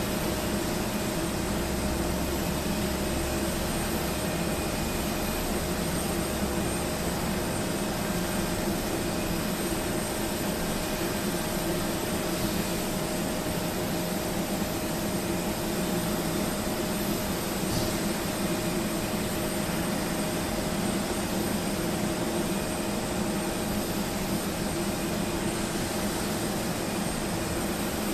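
Steady jet aircraft noise, engines and rushing air, with a constant hum and a few fixed tones. A deeper rumble underneath fades out about seven seconds in.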